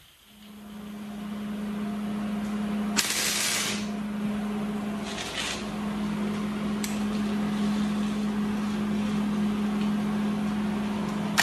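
Welder humming steadily, with short bursts of crackling hiss from tack welds: one about three seconds in, a shorter one about five seconds in, and another right at the end. The hum fades in over the first second or two.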